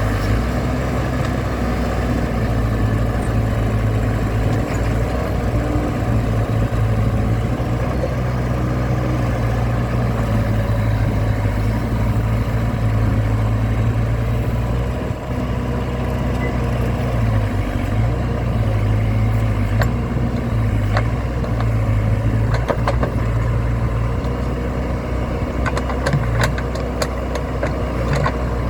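Diesel engine of a Case Super L backhoe loader running steadily at a constant speed, with a few sharp clicks or knocks in the last several seconds.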